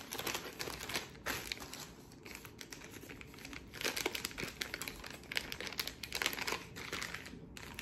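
Thin clear plastic bag crinkling and crackling as it is handled and worked open, in irregular bursts that are busiest about four seconds in and again about six seconds in.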